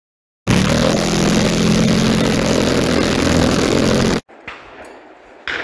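ATV engine running under way, with heavy wind noise on the machine-mounted microphone; it cuts off suddenly about four seconds in. Near the end a single sharp bang.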